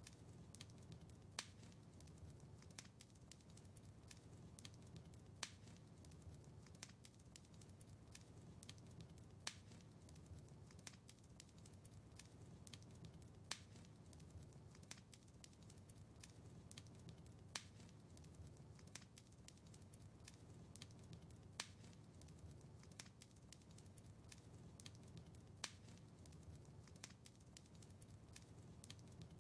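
Quiet wood fire crackling in a fireplace: a soft low rumble of flames with frequent small snaps, and a sharper pop about every four seconds.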